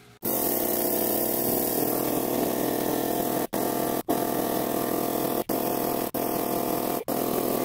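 Gobege 12V portable air compressor running steadily as it inflates a tire through a chuck on the valve stem, with a steady hum and whir. The sound breaks off for an instant several times.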